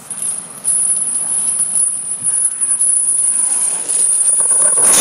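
Heavy steel chains dragged along a concrete sidewalk: a steady metallic scraping and rattling with a high hiss. It holds level for several seconds.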